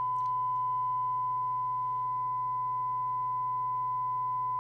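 Harrier CBX FM CB radio's loudspeaker putting out a steady 1 kHz test tone from a signal generator, received cleanly at a strong 100-microvolt (S9) signal, with faint overtones and a low hum beneath it.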